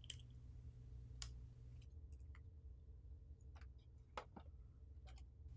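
Near silence with a low room hum and a handful of faint, short plastic clicks as a black inkjet cartridge is handled and its protective tape pulled off.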